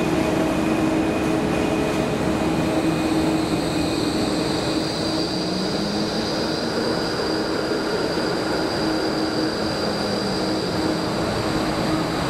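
A Melbourne tram running on rails: a steady rumble with a high whine that rises slightly in pitch partway through.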